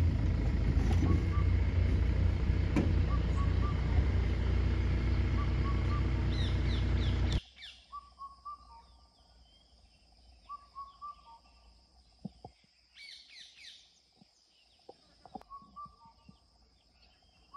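Birds calling in quiet forest: one bird repeats a short whistled phrase about every two and a half seconds, with scattered higher chirps. For the first part a steady low rumble covers them, then stops abruptly.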